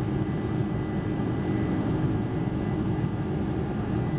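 Steady roar of jet engines and airflow heard inside the passenger cabin of a Boeing 747-400 in flight, with a thin steady high whine above it.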